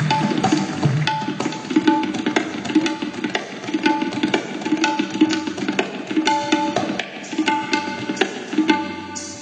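Tabla played in a fast, dense run of strokes, with other instruments holding sustained notes beneath.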